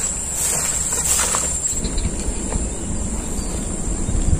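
Steady high-pitched buzzing of insects in the rice fields, loudest in the first half and fading a little after. A few faint scuffs and a low rumble from people walking through the grass come in during the second half.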